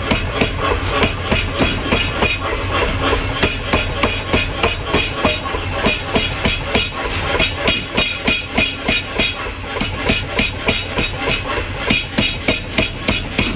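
Power hammer's ram pounding a glowing hot steel bar in rapid, even blows, about four to five a second, over a steady low hum.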